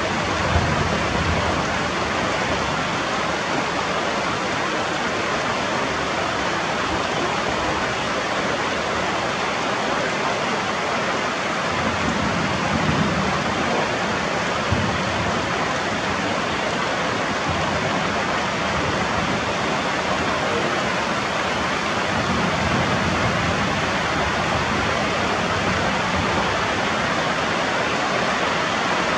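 Heavy rain falling steadily on leaves and rocks: an even, continuous hiss, with a few brief low rumbles.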